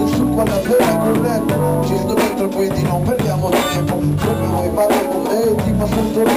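A band playing live: electric guitar over held bass notes and drums with a steady beat.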